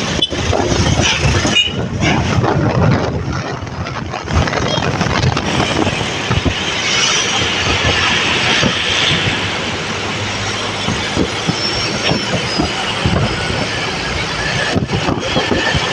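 Steady running noise of a moving bus, with rattling and clatter throughout.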